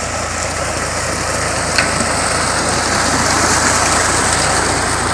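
Tractor-driven tubewell running: water gushes from the outlet pipe into a channel in a steady rush. Under it is the even running of the tractor engine, which drives the well pump by a belt pulley.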